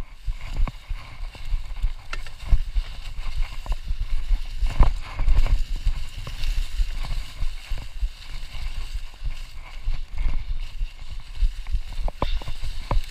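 Mountain bike ridden fast over a trail covered in dry leaves: the tyres rush through the leaves and the bike rattles and knocks over bumps in an irregular patter, under a constant low rumble.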